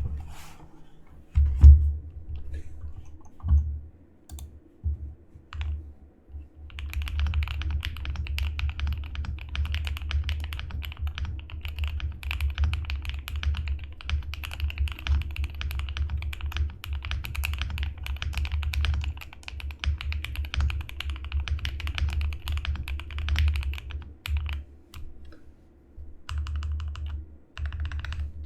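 GMK67 mechanical keyboard with lubed JWK linear switches, a polycarbonate plate and knockoff BOW keycaps being typed on. A few single keystrokes come first, one of them loud, then fast continuous typing from about seven seconds in. The typing pauses briefly near the end, then starts again for a short run.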